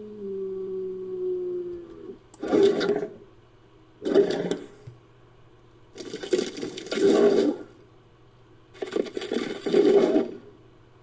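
Synthetic Borissiakia (chalicothere) creature sound effect made from layered bull and camel recordings. A steady, low pitched call ends about two seconds in. It is followed by four rough, breathy animal vocalisations a second or two apart.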